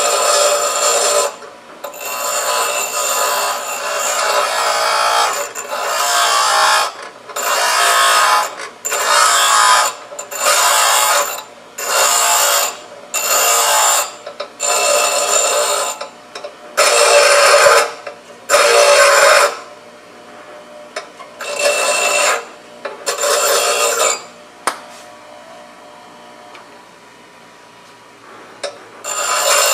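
Steel rod grinding on the coarse wheel of a SKIL 8-inch 3-amp bench grinder, in about fifteen passes of a second or so each with short breaks between them. A few seconds before the end the rod is taken away and only the wheel running quietly is left.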